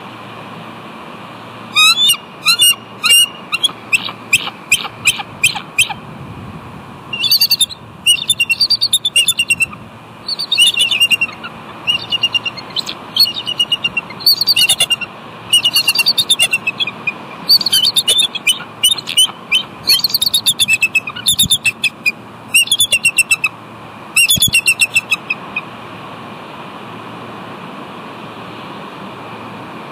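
Bald eagles calling: repeated strings of rapid, high, chittering notes that begin about two seconds in and stop about 25 seconds in, over a steady background hiss.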